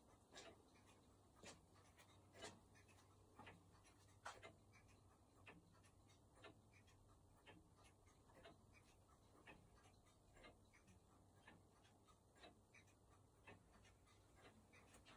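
Antique longcase clock ticking steadily and faintly: a sharper tick about once a second with fainter ticks between, the escapement beating in time with its seconds pendulum.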